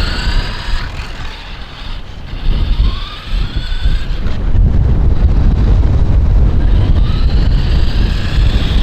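Electric motor of a 1/10-scale RC toy car whining as it accelerates, its pitch rising three times: at the start, about three seconds in, and near the end. Under it runs a heavy low rumble, the loudest thing throughout.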